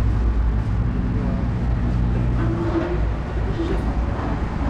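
Motorcycle engine idling steadily, with people talking in the background.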